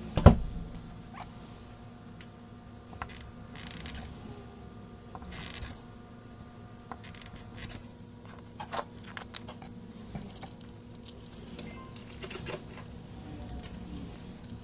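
Small tools clicking, tapping and scraping on an ECU circuit board during desoldering, with a sharp knock just after the start and two short scratchy scrapes a few seconds in, over a steady low hum.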